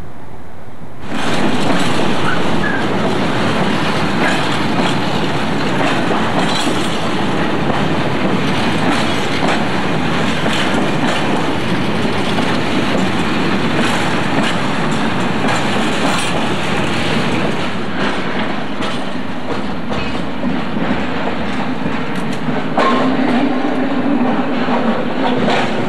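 Railway freight wagons rolling past close by, their wheels clicking over rail joints with a dense rattle of running gear; the sound starts suddenly about a second in.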